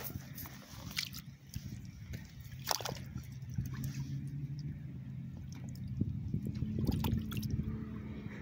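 Shallow water splashing and dripping in a few short, sharp splashes as a small striped bass is handled at the water's edge, over a steady low hum.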